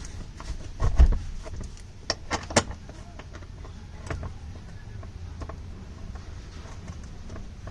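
Van seat being fitted into place: a heavy thump about a second in, then a few sharp metallic clicks and knocks from handling the seat and its mounting screws, with lighter ticks after.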